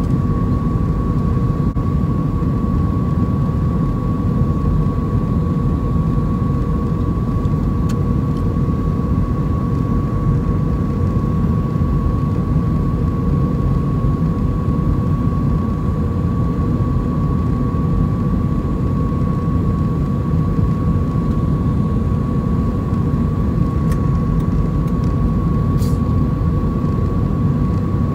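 Cabin noise of an Airbus A320 on final approach with its flaps extended, heard from a window seat over the wing: a steady rush of airflow and its CFM56-5A engines, with a steady high whine running through it.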